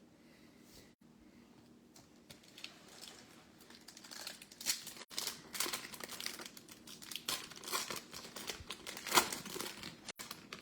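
Foil trading-card pack wrapper crinkling and rustling as it is opened and handled, in irregular crackles that start about four seconds in after a near-quiet start, the loudest crinkle near the end.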